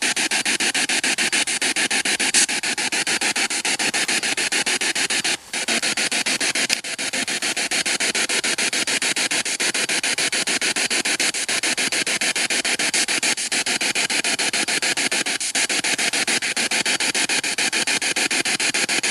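Ghost-hunting spirit box sweeping radio stations through a small blue Bluetooth speaker: continuous static chopped into rapid fragments many times a second. It drops out briefly about five seconds in.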